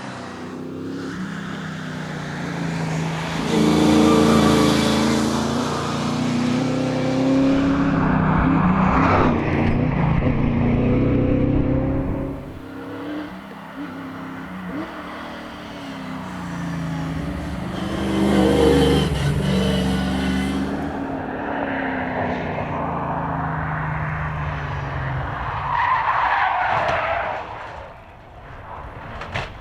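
Holden Torana race car engine revving hard, rising in pitch through the gears and falling away on lifts several times. Tyres squeal briefly near the end.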